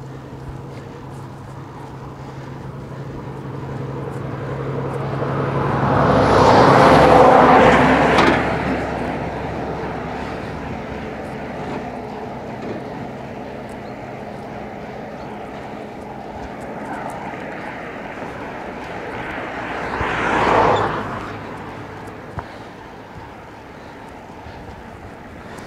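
Road traffic passing: one vehicle's sound swells up to a peak about six to eight seconds in and fades away, and a second passes more briefly about twenty seconds in, over a steady low hum.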